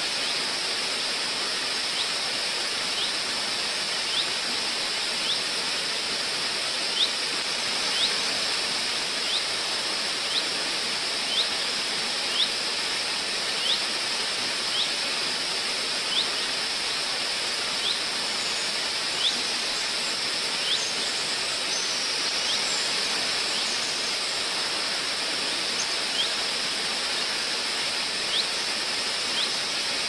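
Waterfall rushing steadily, a dense, even hiss of falling water. Over it, a small bird repeats a short, high, upward-sliding chirp roughly once a second.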